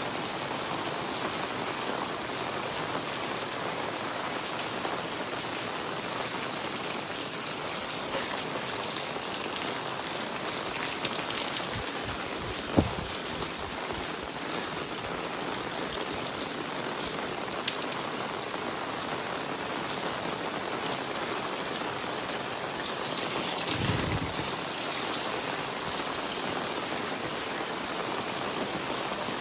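Steady rain falling and pattering on surfaces. There is a single sharp knock about halfway through and a short low thump near the end.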